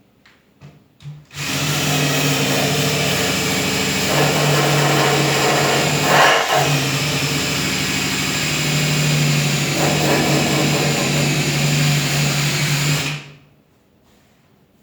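Electric sander running on the steel of a corroded tailgate, sanding the rust back to bare metal: a steady motor hum under the hiss of abrasive on metal. It starts about a second in, swells briefly halfway through and stops near the end.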